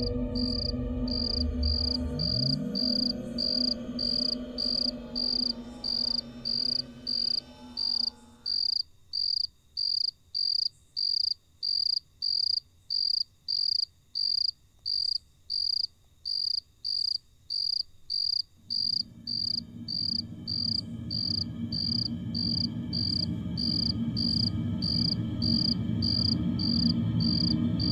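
Cricket chirping steadily at night, about two high chirps a second, over a low drone that fades out for about ten seconds in the middle and then comes back.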